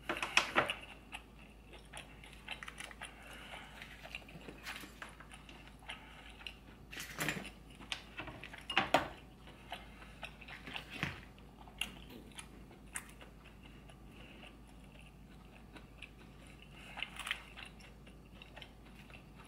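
Close-miked mukbang eating sounds of a person biting and chewing seafood: irregular wet chewing with scattered crunchy bites, a few louder ones standing out.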